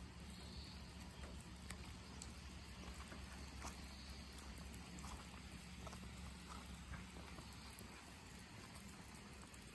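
Faint light rain: scattered drips and soft pattering over a low steady hum.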